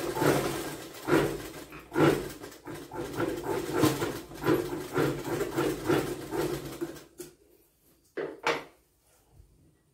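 Motor-driven sewing machine stitching a seam through blouse fabric, its speed surging and easing for about seven seconds before it stops. Two short bursts follow about a second later.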